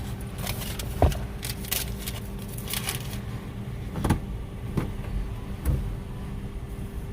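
Car idling, heard from inside the cabin as a steady low hum, with rustling early on and a few sharp knocks.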